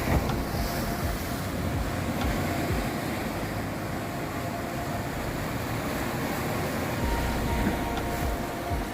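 Sea waves surging and washing over rocks: a continuous rushing wash with low rumbling gusts of wind on the microphone.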